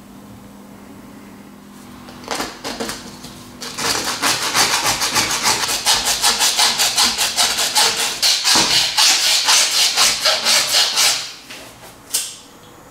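A flat file rasping back and forth on the edge of a plastic ring, about four strokes a second for some seven seconds, after a few short knife scrapes. Near the end, a lighter's flint wheel strikes once.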